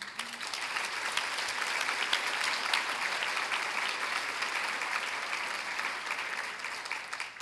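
Audience applauding, building over the first second, holding steady, then dying away near the end.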